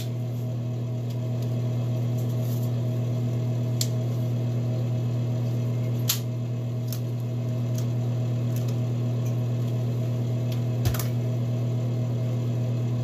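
Small 4-inch handheld electric fan running, a steady low motor hum that does not change, with a few light clicks and taps as it is handled.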